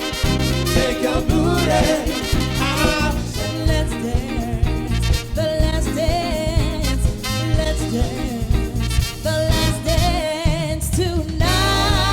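Upbeat soul music with singing over a band, ending on a long held vocal chord near the end.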